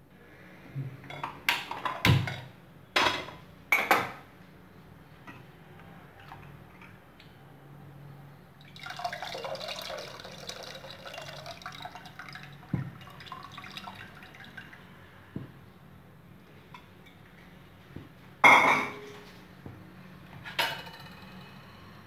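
A spoon clinking against the side of a pressure cooker pot several times while stirring. A few seconds of liquid pouring and splashing into the pot follow, then a loud clank and a smaller knock of steel vessels near the end.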